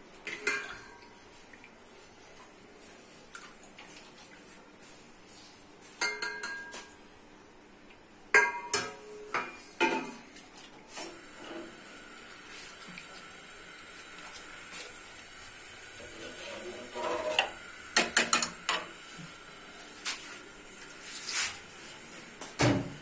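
Steel cookware being handled: a ladle knocking and scraping in a steel pot and a steel plate and lid clanking, in scattered bursts of sharp metallic clinks, some ringing briefly.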